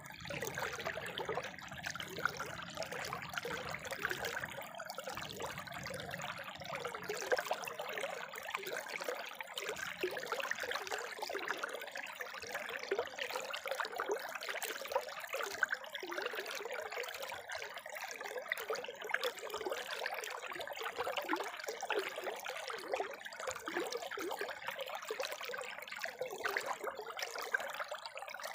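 Spring water trickling steadily, a continuous fine splashing without pauses.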